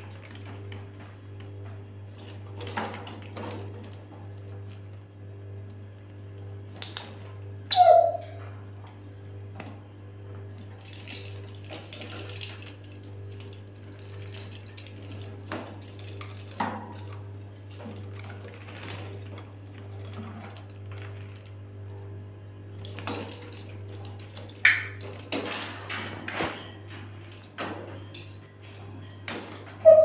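A lory moving about its wire cage: scattered clicks, knocks and clinks as it climbs the bars and knocks against plastic ball toys and wooden perches, with a sharper, louder knock about eight seconds in and another near the end.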